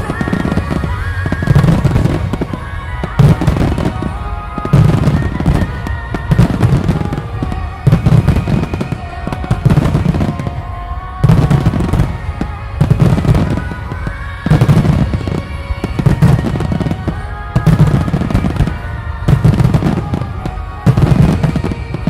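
Aerial fireworks bursting in a steady series, a boom about every second and a half, over music playing throughout.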